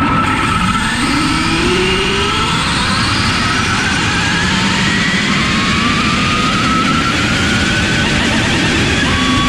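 Onboard sound of a high-speed RC speed-run car accelerating. The whine of its electric drive motors (one driving the front wheels, one the rear) rises steadily in pitch over a dense rush of wind and road noise.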